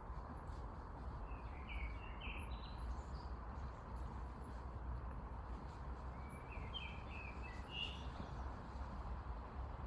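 Birds chirping outdoors in two short bursts of quick high notes, over a steady background hiss and low rumble, with faint high insect-like ticking.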